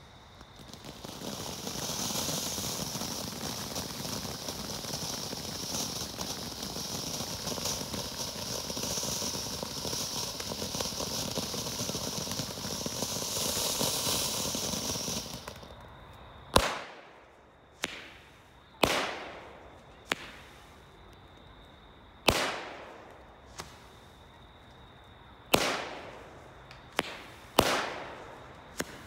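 Enigma 'Garden in Spring' firework fountain-and-shot combo. It gives a steady gushing hiss of sparks for about fifteen seconds. The hiss stops and a string of about ten sharp shots follows, each with a short ringing tail.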